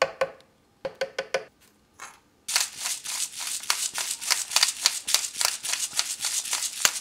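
A few light clinks as spoonfuls of ground spices are tipped into a blender jar. Then, about two and a half seconds in, a pepper mill starts grinding black pepper over the jar: a steady run of rapid, dry crunching ticks.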